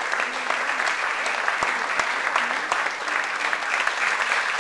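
Audience applauding: many people clapping in a dense, even stream of claps.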